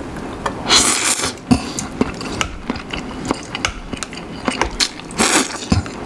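Instant noodles slurped up by mouth in two noisy pulls, one about a second in and one near the end, with wet chewing and many small clicks in between.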